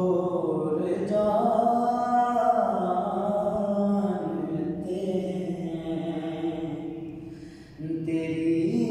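A man singing a naat unaccompanied, in long held notes that bend slowly up and down. Near the end the voice fades briefly before he starts the next phrase.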